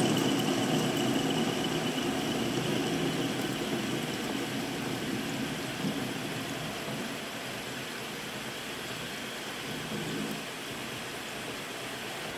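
Centre lathe running with the workpiece turning in its chuck: a steady mechanical hum and rush, with a faint high whine in the first few seconds. It grows gradually quieter over the first seven seconds or so, then holds steady.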